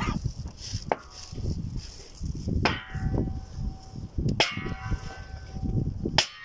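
Four sharp knocks, spaced about one and a half to two seconds apart, each leaving a short ringing tone, as hard objects strike while a stone headstone is set in place. Wind rumbles on the microphone throughout.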